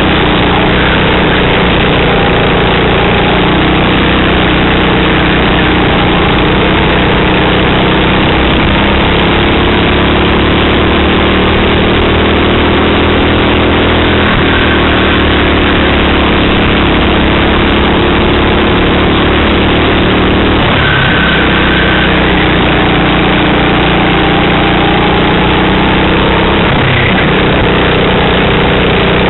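Racing kart engine running hard, picked up from an onboard camera. Its pitch sags and climbs back again a few times as the kart slows for corners and accelerates out, under an even rushing noise.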